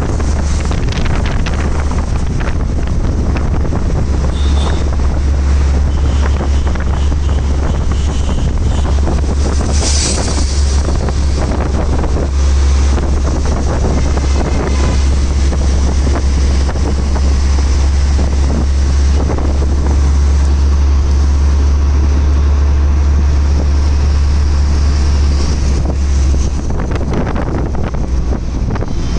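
Moving auto-rickshaw heard from inside its open cabin: a steady low rumble of the engine and road, mixed with wind buffeting the microphone, and a brief louder rush of air about ten seconds in.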